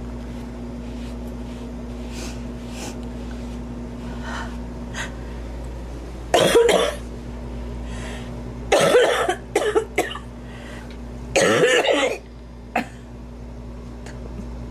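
A woman coughing in several bouts: a cough about six seconds in, a cough with two quick short ones after it around nine seconds, a longer cough near twelve seconds, and one small cough just after.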